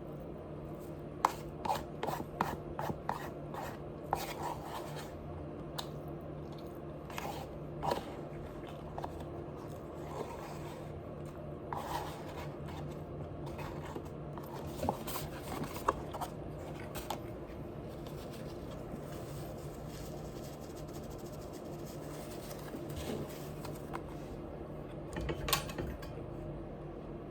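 Close-up chewing and munching of crunchy food, with bursts of crisp crackling clicks and quieter pauses between bites. A faint steady hum sits underneath.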